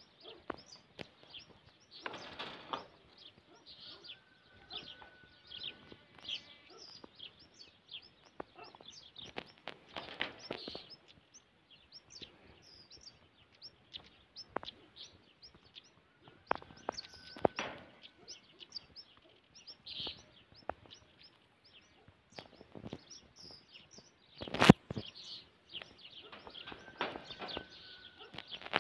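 Small birds chirping in many short, high calls, with a few brief bursts of rustling noise and one loud thump about three-quarters of the way through.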